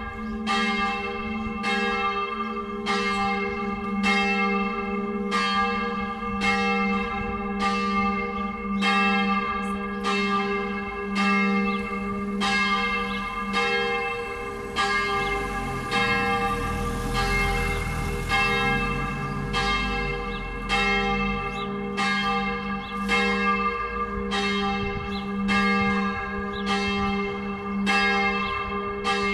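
A church tower's four-bell peal, the largest bell in G-flat, swung in the Tyrolean style and ringing all together in full. The strikes come about one to two a second and overlap over a continuous hum.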